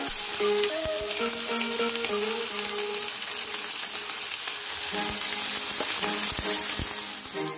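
Marinated pork and liver frying in hot oil in a pan with onions, garlic and hotdogs: a steady, loud sizzle as the meat goes in, with a few knocks from the spoon or the meat against the pan.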